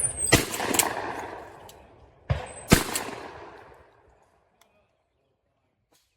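Two shotgun shots at clay targets, about two and a half seconds apart, each echoing and fading away.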